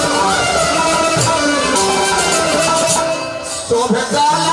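Dugola folk music: a sustained melody over short, bright strikes at a steady pulse. The music dips briefly about three seconds in and picks up again.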